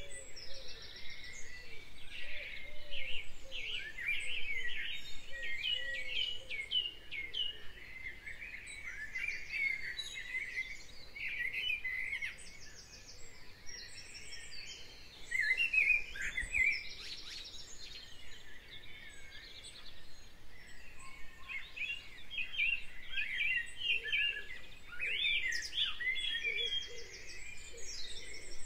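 A chorus of many songbirds chirping and warbling, with fast high trills now and then.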